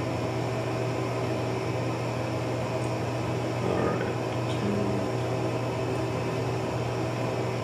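Steady low hum and hiss of room background noise, with a few faint soft clicks near the middle.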